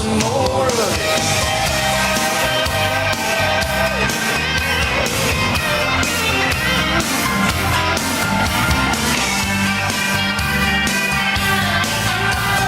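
A rock-style hockey goal song with singing over a steady drum beat.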